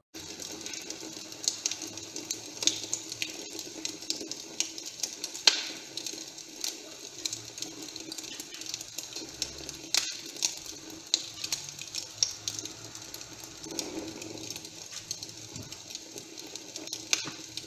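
Wood fire crackling in a fireplace: irregular sharp pops and snaps over a steady hiss.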